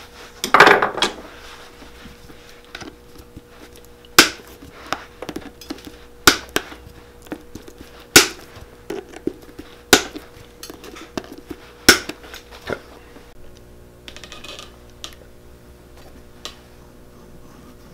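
End-cutting nippers pulling nails out of a boot's leather heel base: sharp metal clicks and snaps about every two seconds, with fainter clicks between.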